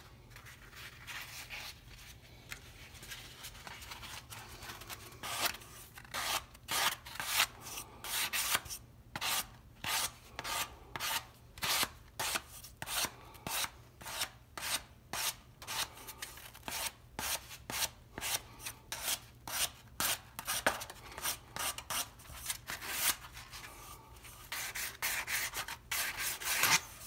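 Sandpaper wrapped around a soft sanding sponge rubbed by hand along the grain of a rosewood plane tote's new horn, in even back-and-forth strokes of about two a second, lighter at the start. This is the final shaping and blending of the replaced horn.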